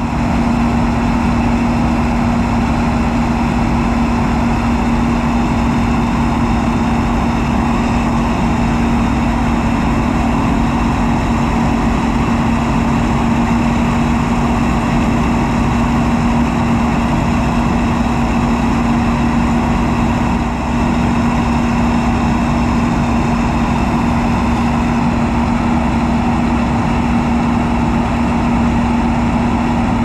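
Steady, even engine drone with one strong low tone, from an Oliver 55-series tractor running close by, with a White 8900 combine harvesting corn and unloading grain into the wagon alongside.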